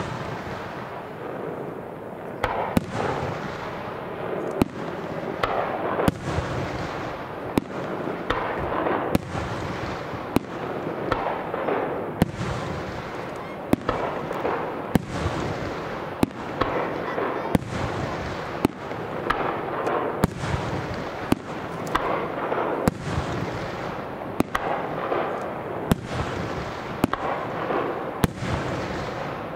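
Aerial fireworks shells bursting in quick succession, a sharp bang about once a second, over a continuous dense noisy wash of further bursts and echoes.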